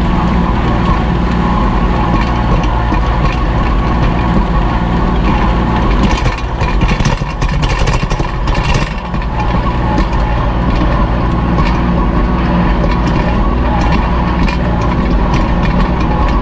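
Kubota L2501 compact tractor's three-cylinder diesel engine running steadily under load while pulling a disc harrow through the ground. A run of clicks and rattles comes about six seconds in and lasts a few seconds.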